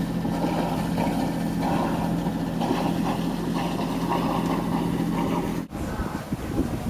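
An engine running steadily with an even low hum, cut off abruptly near the end by a change to wind and water noise.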